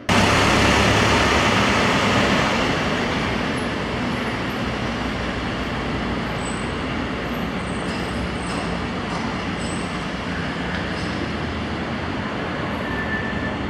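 Steady, loud noise of road traffic that cuts in suddenly and eases slightly after a couple of seconds.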